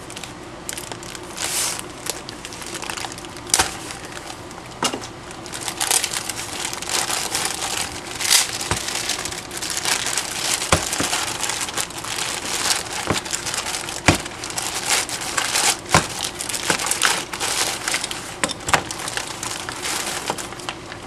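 Packaging being opened by hand: continuous crinkling and crackling of the wrapping, broken by irregular sharp snaps and clicks as strong tape is worked loose.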